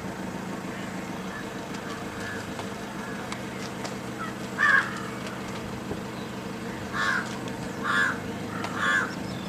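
A crow cawing four times: one harsh caw about halfway in, the loudest, then three more about a second apart near the end. A steady low hum runs underneath.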